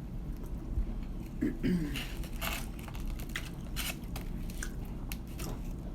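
Close-up eating sounds: a person biting into and chewing KFC fried chicken, with irregular small crunches throughout.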